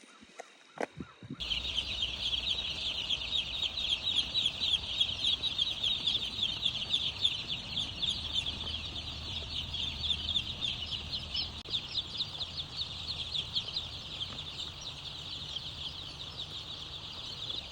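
A large flock of chickens peeping all at once in a chicken house: a dense wall of countless overlapping high-pitched cheeps, with a low steady hum beneath. It starts abruptly about a second and a half in.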